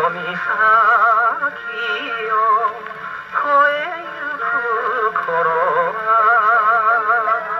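A 1951 78 rpm shellac record playing through the soundbox of an acoustic Columbia Model No. 105 phonograph: a man singing with a strong, quick vibrato, with little bass.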